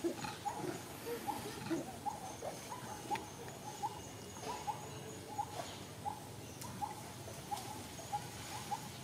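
A small animal's call: short, rising chirps repeated about twice a second, over a faint steady high whine.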